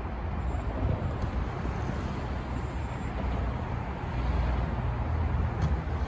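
Steady low rumble with no distinct events: wind on the microphone and street traffic, blended with inline skate wheels rolling over rough pavement.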